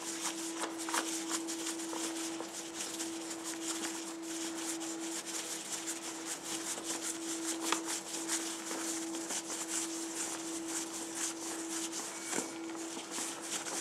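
Nylon softbox fabric rustling and crinkling as hands work it onto the light bank's housing, with a couple of small knocks, over a steady hum.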